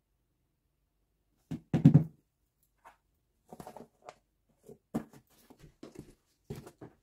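A metal spoon scooping cornstarch from a plastic tub: a loud knock against the tub about two seconds in, then a string of soft clicks and scrapes as the spoonful is lifted out.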